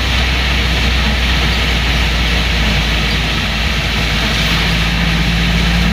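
Heard from inside the cabin, a 1970s Mitsubishi Colt's engine runs with a steady low drone while driving, over an even hiss of rain and tyres on the wet road. About four and a half seconds in, a steady higher tone from the drivetrain joins in.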